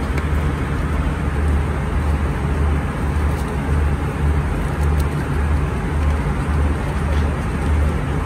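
Steady cabin noise of a jet airliner in flight: an even low rumble with a constant hiss over it.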